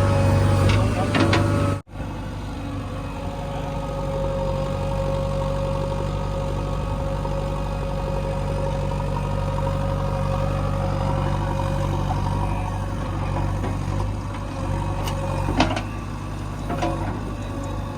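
Backhoe loader's diesel engine running steadily, cutting out abruptly about two seconds in and resuming, with a couple of sharp knocks near the end.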